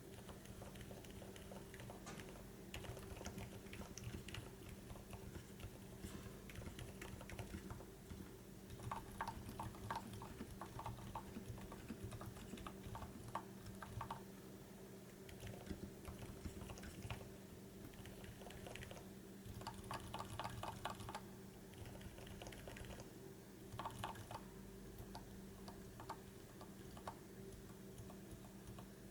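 Silent mechanical keyboard switches being typed on, quiet muffled keystrokes with a few faster runs of rapid typing, over a faint steady hum.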